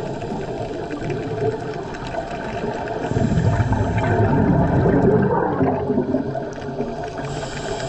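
Scuba diver breathing through a regulator, heard underwater: a gurgling rush of exhaled bubbles swells from about three seconds in and fades after five, and the hiss of the next inhalation starts near the end.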